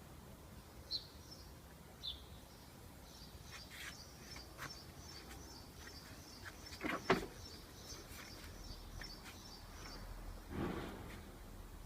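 Small birds chirping, with a run of quick repeated high chirps through the middle. Scattered clicks, and two louder short knocks about seven and ten and a half seconds in.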